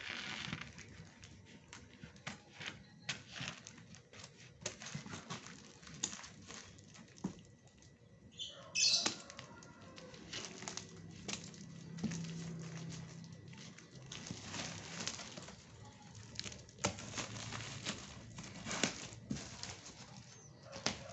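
Parcel packaging being handled and opened by hand: irregular rustling, crinkling and clicks, with a louder crackling burst about nine seconds in.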